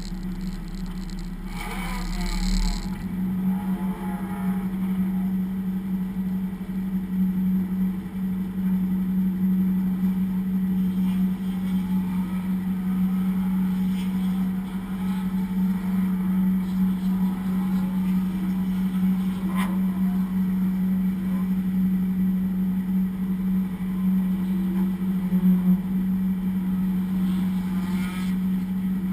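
Race car engine running at a nearly constant pitch. A short burst of extra noise comes about two seconds in.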